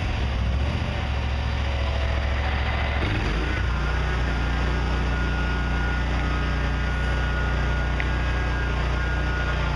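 Gravely zero-turn mower's engine running, speeding up about three seconds in and then holding a steady higher speed, with a thin high whine above it as the mower is driven on its newly replaced hydraulic pumps and wheel motors.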